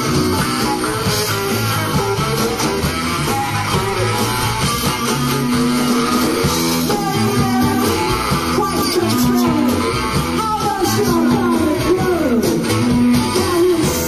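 Live rock band playing, guitar to the fore over bass and drums.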